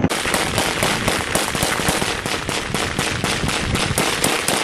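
Sustained automatic gunfire: a steady, rapid string of shots at about four to five a second.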